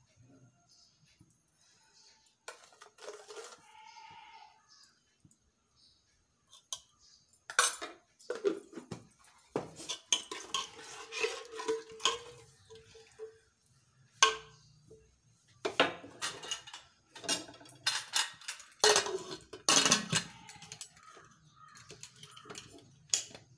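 Metal ladle clinking and scraping against a steel pressure cooker as a thick curry is stirred, a run of irregular knocks that starts after a few quiet seconds. A few more clanks near the end come from the cooker's lid being fitted.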